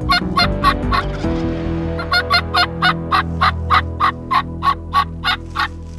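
Wild turkeys calling: a short run of quick yelping notes ending about a second in, then a longer run of about a dozen evenly spaced yelps that slows toward the end.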